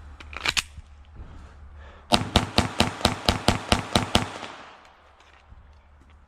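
Glock 44 .22LR pistol fired in a fast string of about eleven shots over two seconds, a few seconds in, after a couple of sharp clicks near the start.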